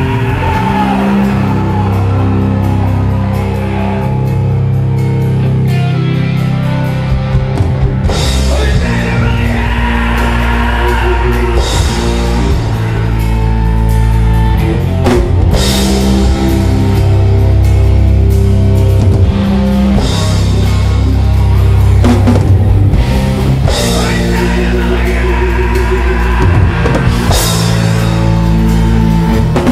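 Live heavy rock band playing loudly: drum kit and guitars over a sustained bass line, with crash cymbal hits every few seconds.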